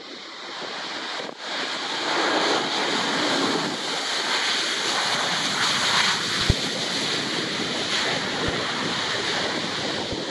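Jet engine noise from a landing Airbus A320-232's IAE V2500 engines: a loud, even rush that builds over the first two seconds and then holds, mixed with wind buffeting the microphone. A brief knock comes about six and a half seconds in.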